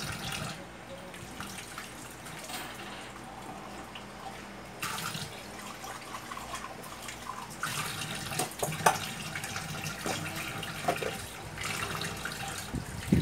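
Kitchen tap running into a stainless steel sink as dishes are washed, with a few light clinks of dishware. The water sound grows fuller about five seconds in.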